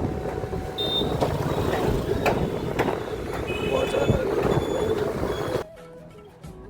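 Town road traffic noise from passing vehicles, with a few short high beeps in the middle. It cuts off suddenly about five and a half seconds in to something much quieter.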